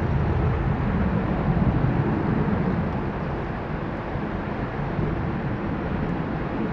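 Distant jet-engine noise of a Boeing 777 rolling out on the runway after landing: a steady low rumble that swells slightly about a second or two in, then slowly eases.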